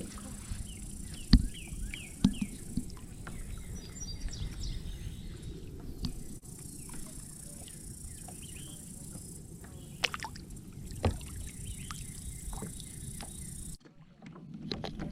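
A kayak being paddled: the paddle splashes and drips, with scattered sharp knocks of paddle on hull over a steady low wind rumble. Faint bird chirps come through now and then. The sound drops out suddenly for about a second near the end.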